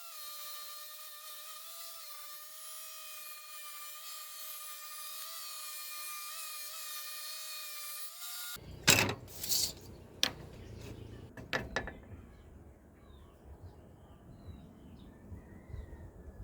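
A small power tool's motor whines steadily for about eight seconds and then cuts off. A few sharp knocks and clatters of wood follow, with faint bird chirps behind them near the end.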